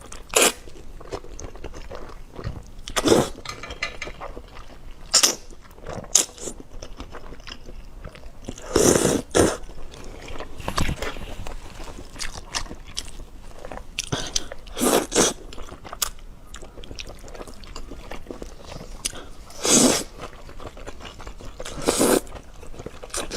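Close-miked mouth sounds of a person eating: steady chewing, broken every few seconds by loud, short biting or slurping bursts.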